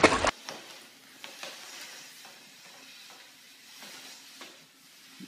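A moment of water splashing from a dog swimming in a pool cuts off right at the start. Then a faint hiss with a few soft taps and rustles from a closed umbrella being shoved across a tile floor by a cat hidden underneath it.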